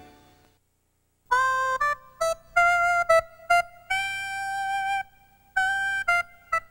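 Keyboard music: a short jingle of single notes, mostly brief and one held for about a second near the middle, starting after about a second of silence.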